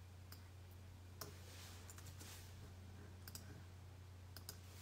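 Near silence: room tone with a steady low hum and a handful of faint, scattered clicks.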